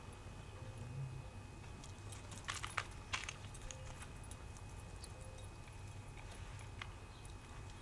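Quiet with a steady low hum, broken by a quick cluster of sharp clicks or crunches about two and a half to three seconds in.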